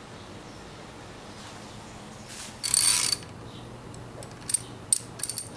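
Metal hand tools and engine parts being worked: a loud half-second metallic rattle about halfway through, then a handful of sharp clicks near the end.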